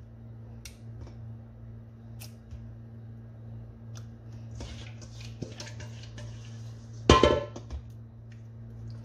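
A hand turning marinated chicken pieces in a plastic container: soft wet squishing and light knocks against the plastic, with one louder short clatter about seven seconds in. A steady low hum runs underneath.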